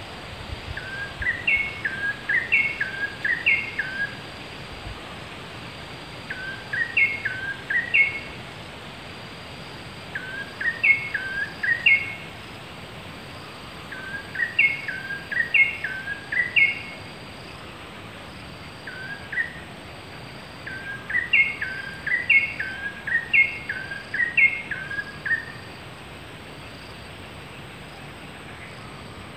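A bird singing in bouts of a few seconds, each a quick series of short notes that hook upward, about six bouts with pauses between them, over a faint steady insect drone.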